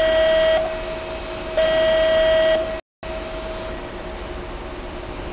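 Steady electronic beep tone, buzzer-like, sounding twice for about a second each with a second's gap. About three seconds in, the sound cuts out completely for a moment, then a steady hiss with faint hum continues.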